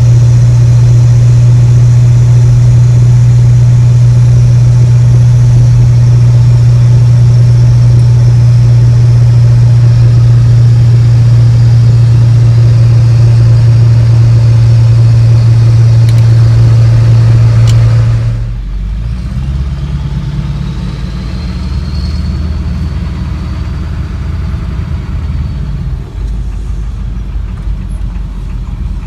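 2000 Ford Excursion's 7.3 Power Stroke turbo-diesel V8 heard from inside the cab with the windows up, through a 4-inch Diamond Eye turbo-back exhaust with muffler: a loud steady low drone while driving, which drops off sharply about two-thirds of the way through and continues as a quieter rumble, with a faint high whistle rising and fading soon after.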